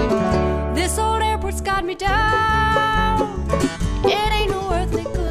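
Bluegrass band playing an instrumental break, banjo and guitar over a steady bass pulse, with a lead instrument holding and bending long, wavering notes.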